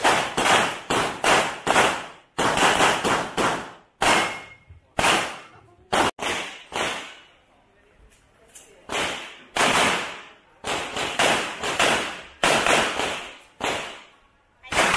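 Handgun shots fired in quick strings of several rounds at about three a second, broken by pauses of a second or so. Each shot has a short ringing tail.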